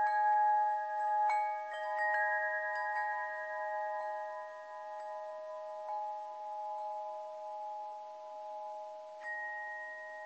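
Bell-like chimes, struck every few seconds. Each tone rings on long and overlaps the others into a steady chord, with the lowest tone the strongest.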